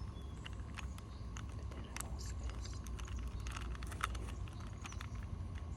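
Irregular light plastic clicks and clacks of a Rubik's cube's layers being turned by hand, over a low steady rumble.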